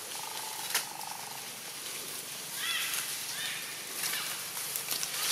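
Baby long-tailed macaque giving two short squeaky calls, each rising and falling, in quick succession; a brief buzzing sound comes first, near the start.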